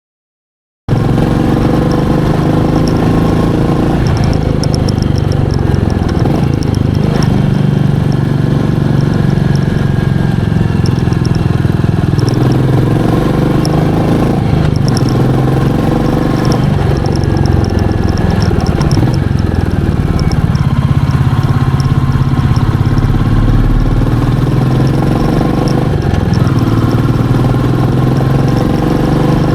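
Royal Enfield Meteor 350's 349 cc single-cylinder engine running, its note rising and falling a little, cutting in suddenly about a second in.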